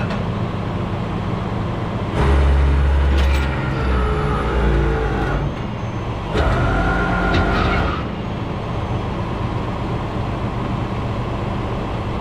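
Vehicle engine running steadily, with two louder stretches of a second or two, about two and six seconds in, where a whine rises over the deeper drone.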